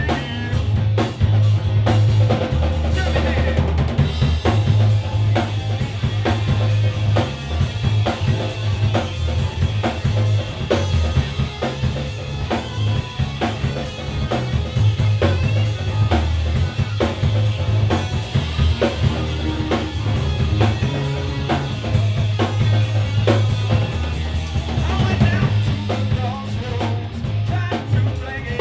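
A live band rehearsing a 12-bar blues: drum kit keeping a steady beat under a moving bass guitar line, with other amplified instruments on top.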